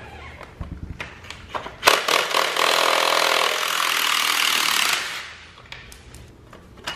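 Cordless power tool running for about three seconds as it spins off a 13 mm nut, after a few light clicks of the socket going onto it; a single sharp click near the end.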